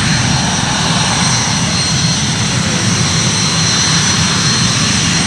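Red Arrows BAE Hawk jets, Rolls-Royce Adour turbofans, running on the ground close by: a steady rumble with a high, even turbine whine.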